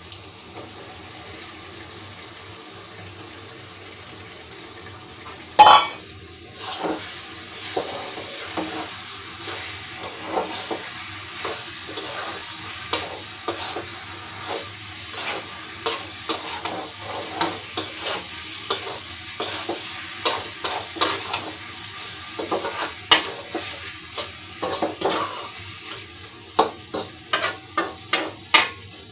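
A spoon scraping and stirring chopped eggplant in a pan of sizzling fried spice paste, in repeated short strokes that come faster near the end. About six seconds in there is one loud clank against the pan.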